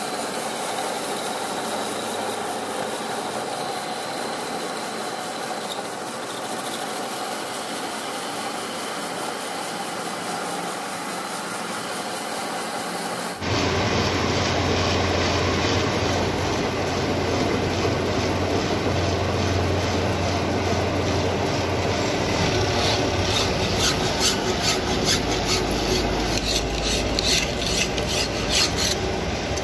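A metal lathe runs steadily, spinning an electric mixer's motor rotor shaft. About halfway through, the sound cuts abruptly to a louder lathe hum. From about two-thirds in, a flat file rasps against the spinning shaft in quick repeated strokes.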